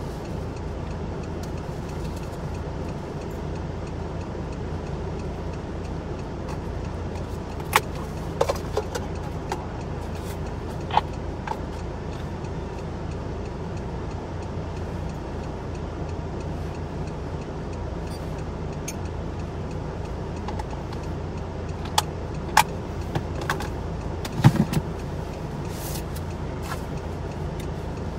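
Steady low engine hum heard inside a stopped car's cabin, with a few scattered sharp clicks and taps, the loudest about 24 seconds in.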